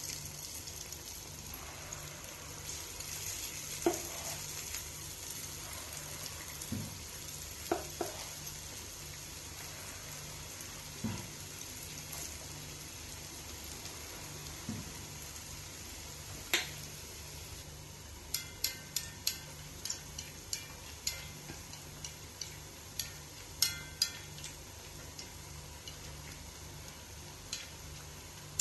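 Vada batter frying in hot oil in a black cheenachatti, giving a steady sizzle. A steel spoon clicks against the pan now and then, with a quick run of clicks in the second half.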